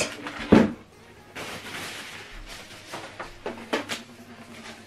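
A single heavy thump about half a second in as the subwoofer cabinet is set down on a table. This is followed by rustling of packing wrap and a few light knocks as the wrapped soundbar is handled.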